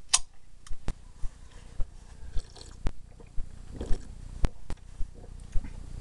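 Scattered sharp clicks and small mouth noises, about a dozen at irregular spacing, with a short hiss about two and a half seconds in.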